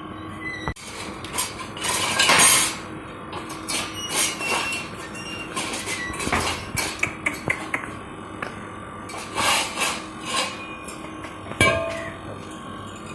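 Steel being hammered and knocked: irregular sharp metal strikes and clinks, some ringing briefly, with a louder cluster of blows about two seconds in and a ringing clang near the end.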